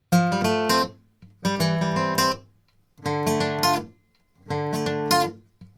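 Background music: acoustic guitar strumming chords in four short phrases, each about a second long with brief pauses between.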